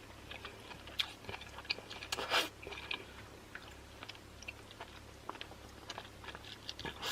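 Close-miked chewing of saucy seafood-boil food: a run of soft, wet clicks and smacks from the mouth, with one louder, longer noisy smack about two seconds in.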